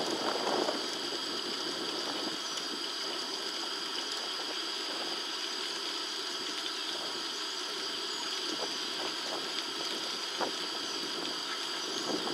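Steady outdoor ambience: an even hiss with a constant high-pitched buzz and a few faint scattered ticks.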